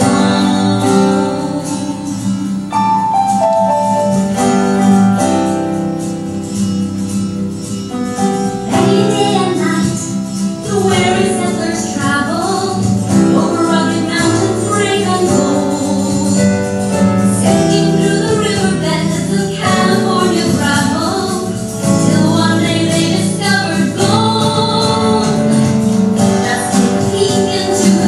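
A song: a woman singing over an instrumental backing.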